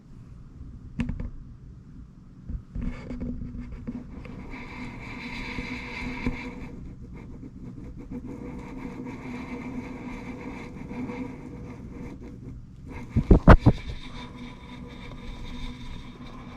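Pomeranian dog snoring in its sleep, a steady pitched snore with short breaks. A few sharp knocks sound, the loudest a quick run of them about thirteen seconds in.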